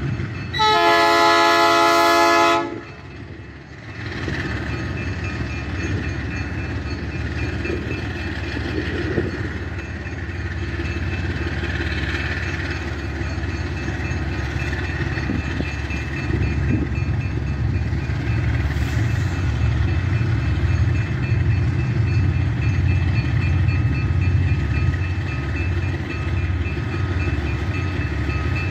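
The lead GE U20C diesel-electric locomotive sounds its horn in one chord-like blast of about two seconds. Its diesel engines then run under load as the heavily loaded grain train starts from a standstill, growing louder as the locomotives draw closer.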